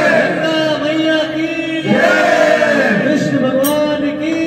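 Voices singing in a chant-like style, in long held notes; a new phrase starts about two seconds in.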